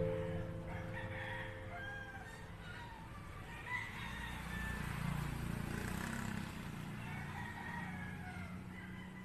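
Background music stops about half a second in, leaving outdoor sound: a rooster crowing and scattered short bird calls over a low steady hum.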